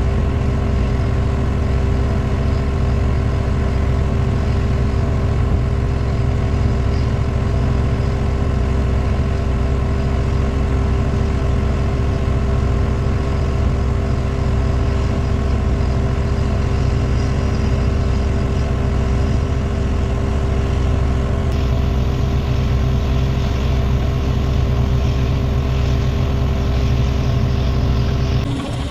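Large crawler bulldozer's diesel engine running steadily, with strong low-pitched engine tones throughout. The sound's upper range changes a little past 21 seconds in, as if another machine or take follows.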